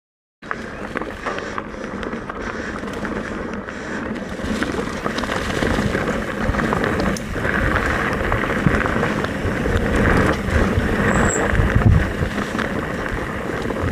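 Mountain bike riding down a rough dirt trail: tyres rumbling over the ground and the bike clattering with many small knocks, growing louder as the run goes on.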